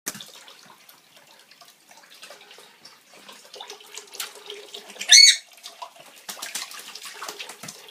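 Water running and splashing as a pet bird bathes in it, with one loud, short call from the bird about five seconds in.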